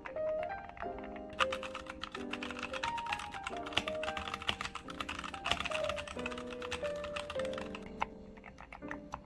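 Rapid typing on a GMK67 gasket-mount mechanical keyboard fitted with Gateron Silver Pro V3 linear switches and PBT keycaps: a fast stream of key clacks, thickest in the middle few seconds, over background music.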